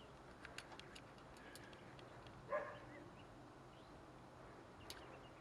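Near silence: room tone with a faint steady hum, a few light clicks, and one short pitched squeak about halfway through.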